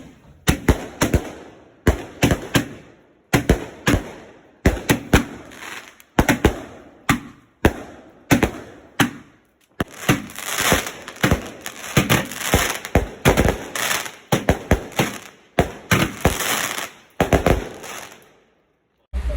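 Fireworks going off in a fast run of sharp, loud bangs, thickening into dense crackling through the middle of the run before stopping abruptly near the end.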